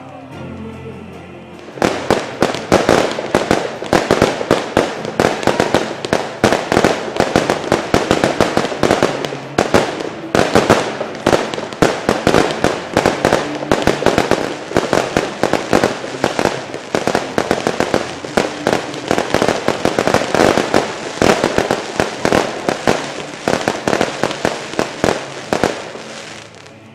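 Fireworks going off: after a quieter first two seconds, a dense, rapid crackling of many sharp little bangs sets in and goes on with hardly a break. It is the sound of crackling stars bursting in the air, and it dies down just before the end.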